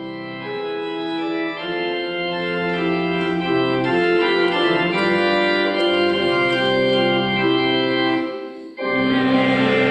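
Intro music on organ: sustained chords that shift about once a second and swell in the opening seconds. Near the end it dips briefly, then comes back louder and brighter.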